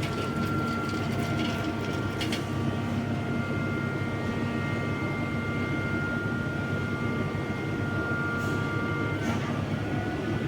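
A large machine running steadily: a continuous low rumble with a steady high whine over it and a few light clicks.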